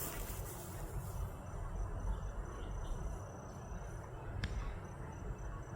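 Insects chirring in a thin, steady high tone with short breaks, starting about a second and a half in, over a low rumble of wind on the microphone; a faint click about four and a half seconds in.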